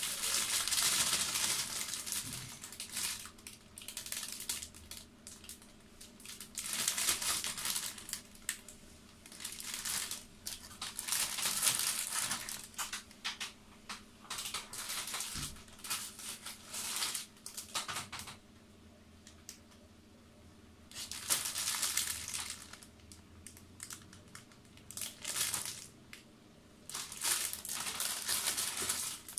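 Clear plastic bags around model-kit runners crinkling in repeated bursts a few seconds apart as the bagged runners are lifted out of a cardboard box and set down.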